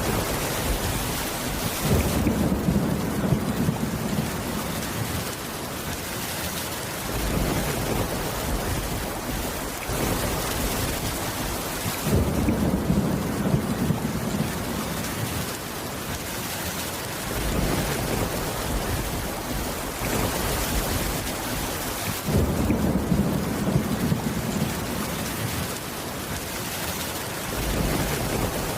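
Steady rain on a roof, with a low rumble of thunder swelling up three times, about ten seconds apart.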